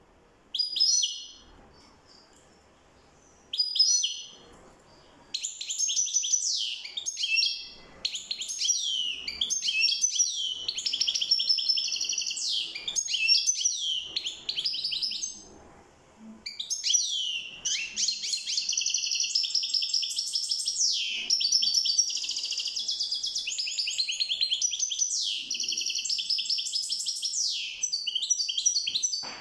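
European goldfinch singing. Two short bursts of calls come first, then a long, rapid twittering song of high, quickly varying notes, broken once by a short pause about halfway.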